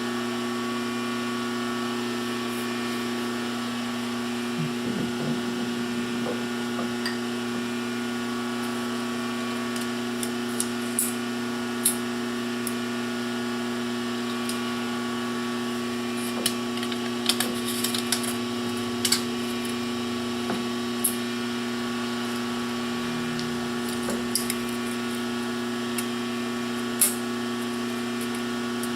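Metal lathe running: a steady motor and gear whine with scattered sharp ticks.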